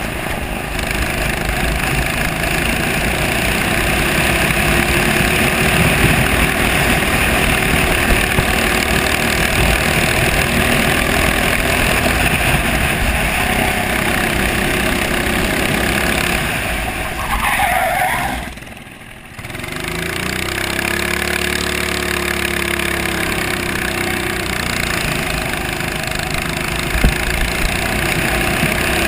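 Racing kart engine running at speed on a circuit, heard onboard. The sound drops sharply for about a second roughly two-thirds of the way through, then returns.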